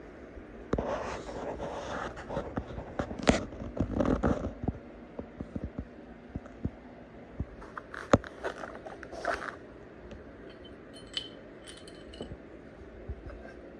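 Small metal parts and hardware being handled on a workbench: a few seconds of scraping and clattering at the start, sharp clicks and clinks around eight to nine seconds in, and a few light metallic ringing clinks near the end.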